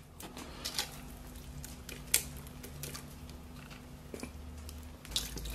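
Soybean paste being shaken from a glass jar into a pot of broth: faint wet squishes and a few small taps.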